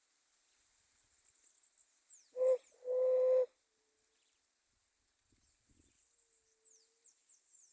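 A dove cooing: a short note then a longer held note at the same low pitch, with a fainter coo a few seconds later. High, thin chirps and quick downward-sweeping calls go on in the background.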